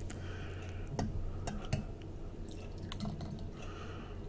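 A glass teapot of brewed oolong tea being handled at the lid: a few light, sharp clicks and taps of glass, with soft dripping liquid sounds.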